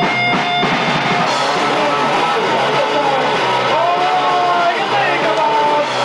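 Punk rock band playing live and loud: electric guitar, bass guitar and a drum kit. A held high note breaks off a little over half a second in as the band plays on.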